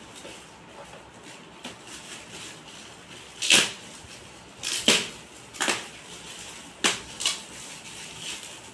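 Plastic gift wrapping crinkling and rustling in five or six short bursts as a wrapped gift is pulled open by hand.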